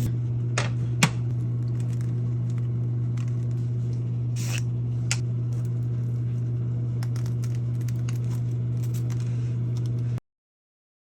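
A steady low electrical hum with a few light clicks about a second in and a brief scrape-like hiss near the middle, ending in dead silence about ten seconds in.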